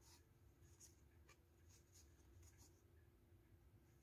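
Near silence with faint, soft scratches and ticks of a crochet hook being worked into the yarn at the base of a felt slipper sole, several light ticks spread over the seconds, above a low steady hum.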